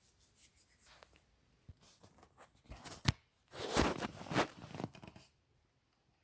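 Close handling noise: irregular rustling and scraping, with a sharp click about three seconds in and a louder stretch of scraping just after.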